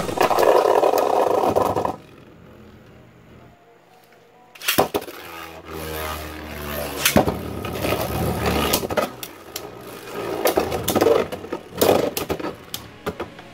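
Beyblade Burst spinning tops whirring and scraping across a plastic stadium floor, with many sharp clacks as they strike each other and the stadium wall. The sound drops for a couple of seconds, then the clacking starts again.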